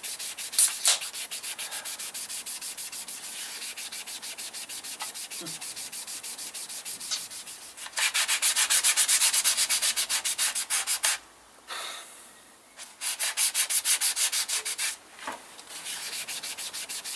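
Sandpaper rubbed by hand over a primed plastic motorcycle fairing panel in rapid, even back-and-forth strokes. It is light flatting of the primer to sand off a black guide coat and key the surface for paint. The strokes get louder a little past the middle, stop for about two seconds, then start again.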